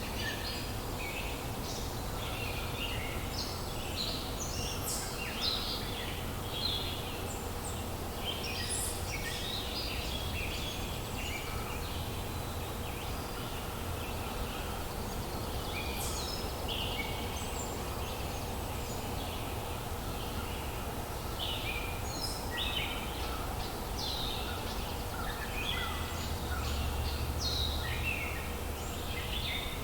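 A chorus of many songbirds chirping and singing at once, the calls overlapping throughout, over a steady low background rumble.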